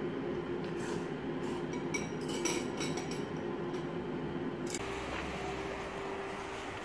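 Light clinks of metal chopsticks and a spoon against a ceramic bowl, over a steady hum. About two-thirds of the way through, the sound changes suddenly to street ambience with a low steady rumble.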